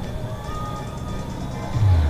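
Background music with held steady notes, and a low thump near the end.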